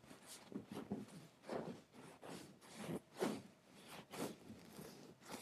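Hands rubbing and squeezing close against the microphone as a mock shoulder massage: soft, repeated brushing swishes, about two a second.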